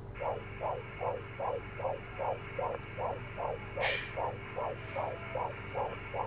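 An unborn baby's heartbeat from a prenatal heart monitor, heard over a phone line: a fast, even pulse at about two and a half beats a second over a low hum, with one short click about four seconds in.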